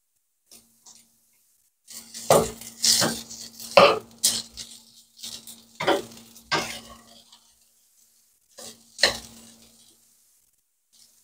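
A spatula scraping and knocking against a wok as fried rice is stir-fried over a gas flame to reheat it, with some sizzling. Clanks start about two seconds in, come thickly for the next five seconds, and return once more near the end.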